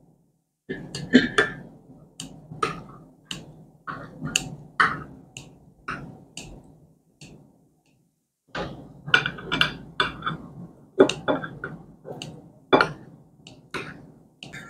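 Background music made of sharp percussive hits, about one to two a second, with a short pause about halfway through.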